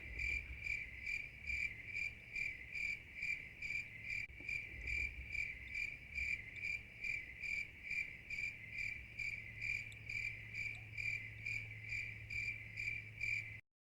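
Crickets sound effect: a cricket chirping steadily, about two and a half chirps a second, over a faint low hum. It cuts off suddenly near the end.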